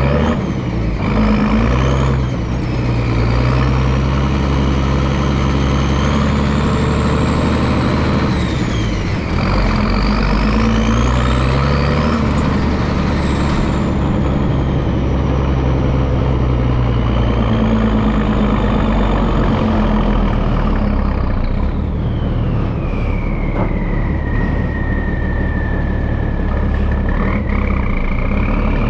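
M51 5-ton 6x6 military dump truck with a multifuel diesel engine running under way. A high whine rises and falls in pitch several times over the steady engine note.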